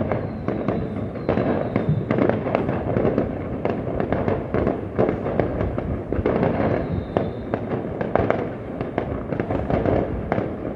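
Fireworks going off in a rapid, continuous barrage of bangs and crackles, with a faint high whistle twice.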